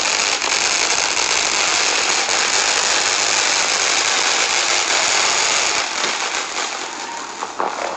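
Fireworks going off at street level in a dense, continuous crackle, easing off slightly near the end.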